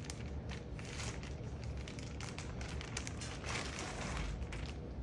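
Packaging crinkling and rustling in irregular crackly bursts as a package is opened and unwrapped by hand.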